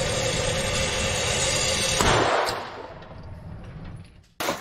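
Full-auto Glock pistol firing a long burst so fast that the shots run together, ending about two seconds in with a last shot. The echo of the indoor range dies away after it, and a single sharp bang comes near the end.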